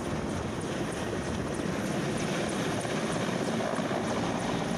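Low-flying Mil Mi-17-type military transport helicopter, its rotor and engines running steadily and growing gradually louder as it passes close overhead.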